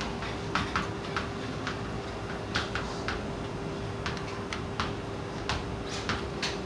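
Chalk on a chalkboard while characters are being written: irregular short taps and scrapes, several a second at times, over a faint steady hum.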